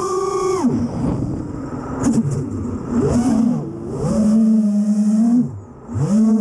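A 5-inch FPV quadcopter's motors and Ethix S5 three-blade polycarbonate props whining, the pitch rising and falling as the throttle is worked. Near the end the throttle is briefly chopped, the sound dropping and sinking in pitch, then punched back up.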